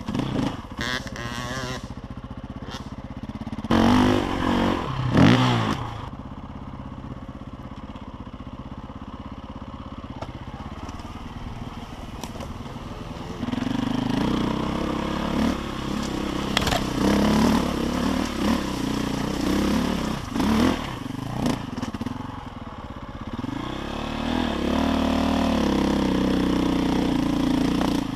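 KTM enduro motorcycle engine being ridden off-road. It gives two sharp revs about four and five seconds in, runs lower and quieter for a while, then pulls louder and steadier from about halfway, with more revs toward the end.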